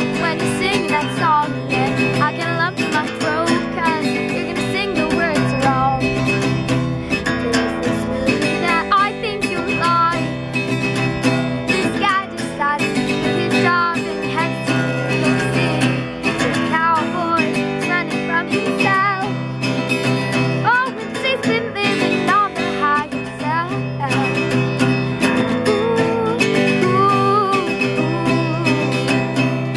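Acoustic guitar strummed steadily in chords, with a girl's voice singing a melody over it.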